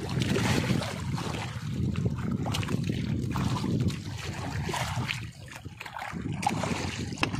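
Sea water sloshing and splashing against the hull of a small outrigger fishing boat (bangka), with a few light knocks.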